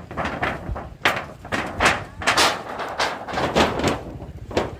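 A rapid, irregular run of knocks and thumps, several a second, over a rustling noise.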